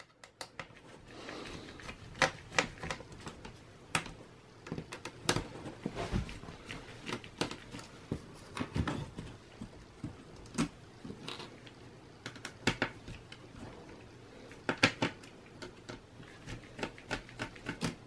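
Irregular small clicks and taps as a mini Phillips screwdriver works out the screws holding the laptop's drive bracket and gloved hands handle the small metal and plastic parts.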